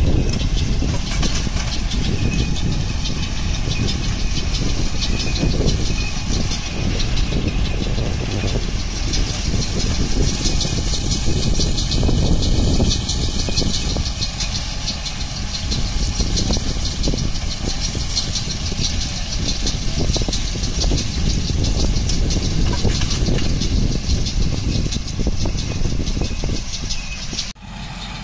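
A tractor pulls a small square baler working through straw. The tractor engine runs steadily under the dense clatter of the baler's pickup and bale-forming mechanism.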